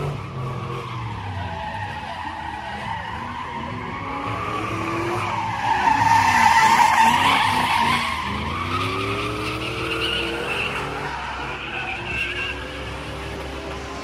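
Pickup truck doing a burnout: tyres screeching as they spin on the pavement while the engine revs up and down repeatedly. The screech is loudest about six seconds in.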